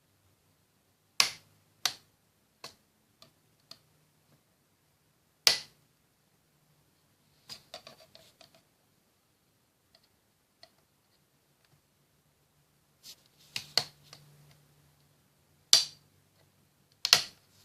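Sharp plastic clicks and snaps at irregular intervals, some loud and some faint, with a little scraping between them: a thin pry tool working a Toshiba Satellite C850 laptop keyboard free, its retaining pins popping loose. The loudest snaps come about a second in, at about five and a half seconds, and near the end.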